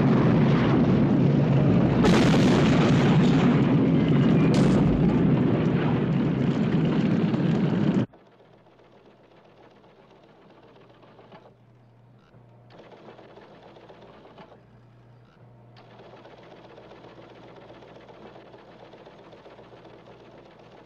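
Movie sound of a burning train wreck: a loud, dense roar of fire and explosions, with sharp blasts about two and four and a half seconds in. About eight seconds in it cuts off abruptly to a quiet steady hum of control-room equipment, with stretches of rapid mechanical chatter.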